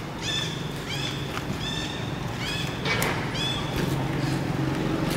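Baby macaque giving a run of short, high, arching squeals, about two a second, that fade out about three and a half seconds in, over a steady low hum.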